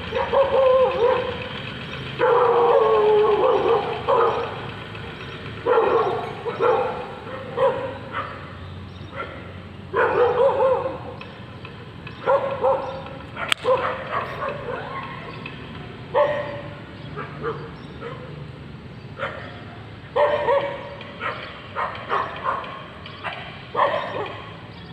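Dog barking and yelping over and over, a string of pitched calls, some drawn out for a second or two, with short gaps between them. A single sharp click sounds about halfway through.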